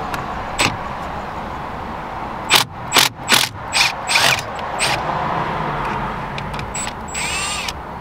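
Cordless power driver with a security Torx bit working a Loctite-stiff airbag screw out of a steering wheel. About two and a half seconds in it goes in five short bursts, and near the end it spins briefly with a whine that rises and falls.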